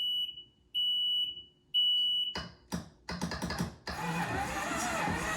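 Electronic beeper on a Kawasaki STX-12F jet ski sounding three high-pitched beeps about a second apart as the power is switched on. A few sharp clicks follow, and near the end loud music starts.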